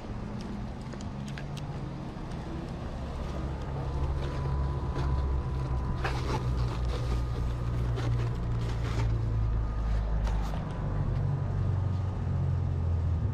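Car engine and road noise while driving; the low engine hum grows louder and stronger about four seconds in, as under acceleration.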